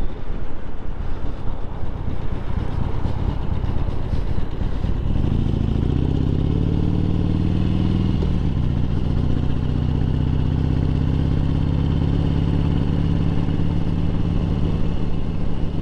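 Harley-Davidson Sportster 1200's air-cooled V-twin pulling away and accelerating, its pitch rising over a few seconds, then dipping about eight seconds in as it shifts up and settling into a steady cruise.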